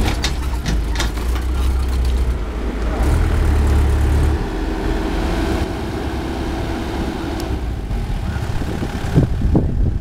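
Heavy-equipment diesel engines running, with a deep low rumble for about the first four seconds that then eases off. A few knocks come near the end.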